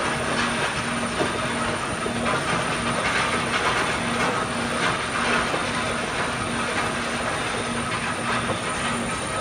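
Heavy rail-mounted stacker-reclaimer and conveyor machinery running with a steady rattling hiss, with a low tone pulsing on and off about twice a second.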